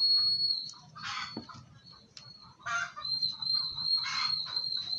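Poultry calling in the background: three short, harsh calls. A steady high-pitched tone drops out for a couple of seconds in the middle, then returns.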